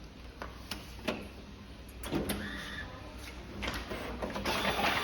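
Mini automatic stitching and folding machine running on a thicker stack of paper. A steady motor hum carries a few sharp clicks in the first second, then a short burst of mechanism noise around two seconds in. Near the end comes a louder, busier stretch of clatter as it staples and folds.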